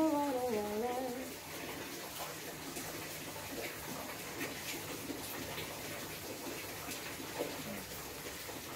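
Steady rain falling, an even continuous hiss. A woman hums a tune over it for about the first second.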